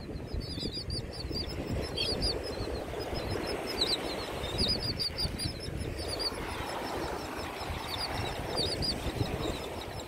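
A flock of terns and gulls on the beach calling: many short, high chirping calls, several a second, over a steady low rumble of surf and wind.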